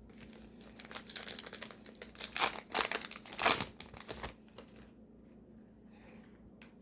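Plastic trading-card pack wrapper being torn open and crinkled in the hands, a run of crackling rustles lasting about four seconds, loudest in the middle.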